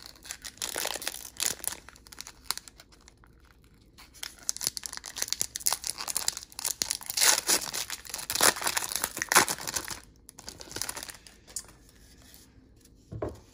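Trading-card pack wrappers being torn open and crinkled, with bursts of crinkling about a second in and again from about six to ten seconds.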